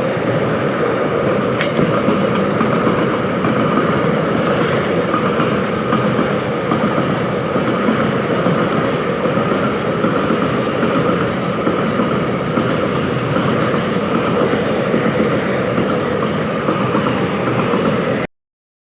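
Steady noise of a train running on the track, holding level throughout and cutting off suddenly near the end.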